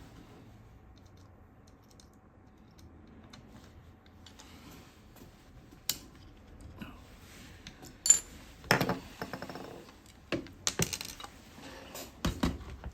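Small metal parts clicking and clinking as a screw and tools are worked against a gun rail during fitting, a scatter of sharp clicks starting about six seconds in, with a short rattle of quick clicks about nine seconds in.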